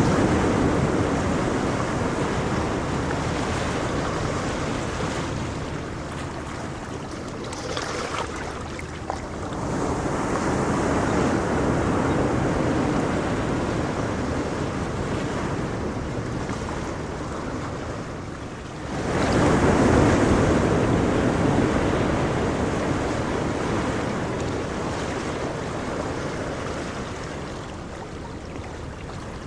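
Ocean waves breaking, the surf swelling and ebbing in slow surges. Larger waves come in about ten and nineteen seconds in; the one at nineteen seconds arrives suddenly, is the loudest, and fades away slowly.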